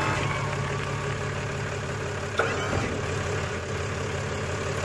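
Ram 3500's 6.7-litre Cummins turbo-diesel straight-six idling steadily, with a single knock about halfway through.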